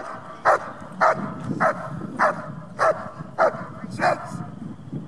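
German Shepherd barking sharply and repeatedly, about one bark every 0.6 s, eight barks in all, stopping about four seconds in.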